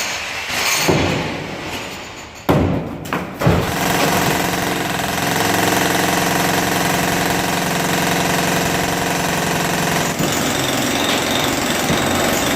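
Construction-site machinery: a few loud knocks, then a motor-driven machine running steadily with an even hum from about four seconds in, its sound shifting slightly about ten seconds in.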